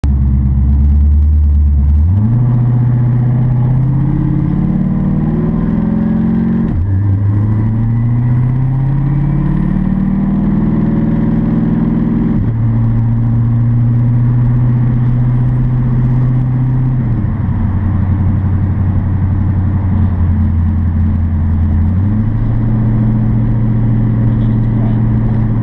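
Turbocharged GM LTx V8 idling, then revved up twice with rising pitch and dropped back, held at a raised speed, settling lower, then raised again. It is revved to bring out an odd squeak from the driver's side that follows RPM under throttle and is absent at idle.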